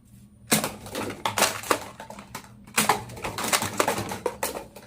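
Sharp, irregular plastic clicks and clacks from a toy Nerf blaster being worked by hand, about a dozen over a few seconds.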